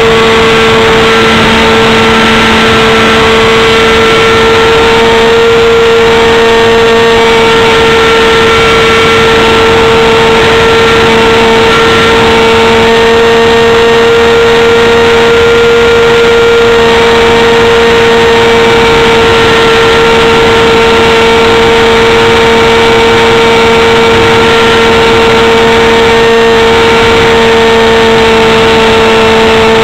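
Engine and propeller of an RC P-51 model airplane in flight, heard from a camera mounted on the plane: a loud, steady high-pitched drone that holds nearly the same pitch throughout.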